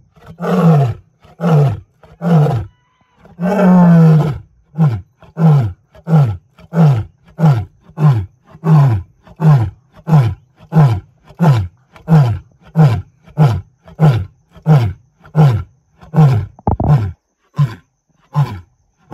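Male African lion roaring: a few short calls, then a long full roar about three seconds in, followed by a long run of short grunting calls about two a second, each falling in pitch, that grow shorter and weaker toward the end.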